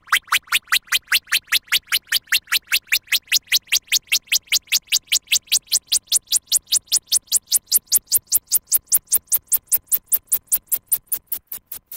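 Synthesized futuristic sound effect: rapid electronic pulses, about six a second, sweeping steadily upward in pitch and beginning to fade near the end.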